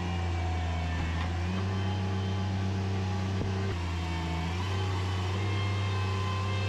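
An engine running steadily with a low, even hum, the sound of heavy job-site machinery such as excavation equipment or a concrete truck.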